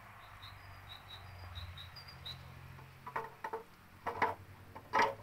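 Cast-metal valve cover being lowered onto a Mercedes M110 cylinder head and worked into place on its gasket: a few sharp clunks and knocks in the second half, the loudest near the end. Faint high chirps in the first half.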